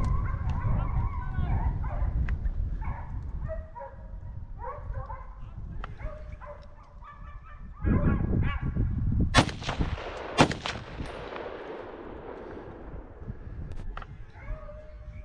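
Hounds baying in the distance, then two rifle shots about a second apart, the second echoing away across the open ground.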